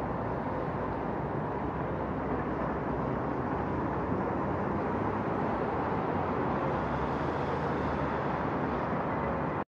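Steady urban ambience: an even rumble of traffic with no distinct events, cutting off suddenly at the very end.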